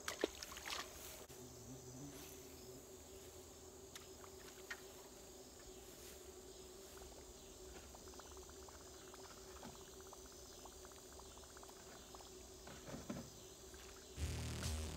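Crickets chirping in a faint steady drone, with a low steady hum underneath. A louder low sound comes in near the end.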